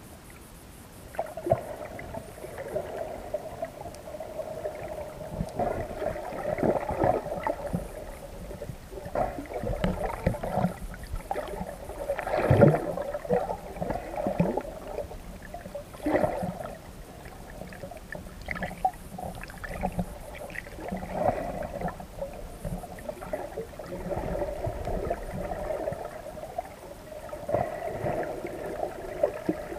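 Muffled underwater water noise picked up by a submerged camera: water movement and gurgling, with irregular short clicks and swishes.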